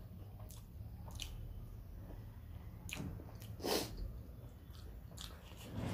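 Close-up mouth sounds of a person eating rice and gravy by hand: chewing with small wet clicks and smacks, and one louder, short hissing noise about halfway through.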